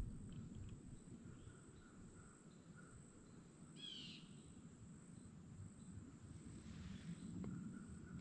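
Faint woodland ambience with a steady high insect buzz, and about four seconds in a single short, harsh blue jay call: the jays are scolding a buck moving close by.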